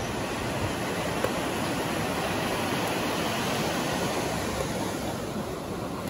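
Sea surf breaking and washing up the sand beach, a steady rushing noise that eases slightly near the end.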